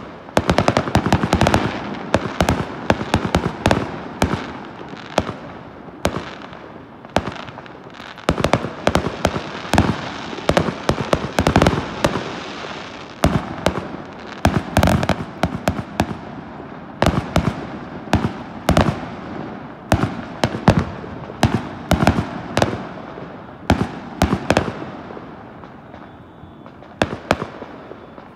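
Aerial fireworks going off in rapid succession: a dense run of sharp bangs with crackling between them, thinning out for a few seconds near the end before picking up again.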